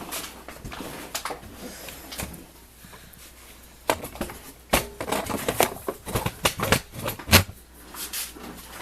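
Scattered clicks, taps and knocks of bolts and tools being handled on a workbench. They come sparsely at first and grow busy after about four seconds, with one heavier knock near the end.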